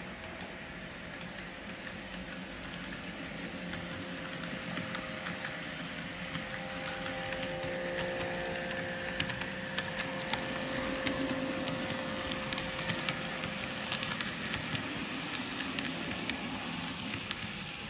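Model railway S set double-deck electric train running past: a steady motor hum that grows louder as it nears, then many quick irregular clicks of its wheels over the track as it goes by.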